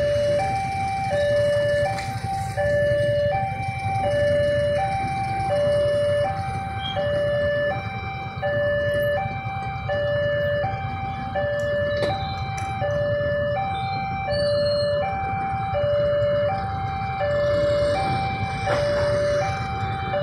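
Railway level-crossing warning alarm sounding, alternating steadily between a lower and a higher tone about every three-quarters of a second. Underneath it is a low rumble from the idling motorcycle and car engines of the traffic waiting at the crossing.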